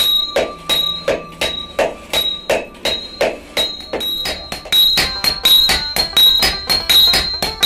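Several hammers beating a red-hot piece of brass held in tongs, taking turns in a steady rhythm of about three ringing metallic blows a second, hot-forging the metal into shape. The blows come thicker and louder after about five seconds.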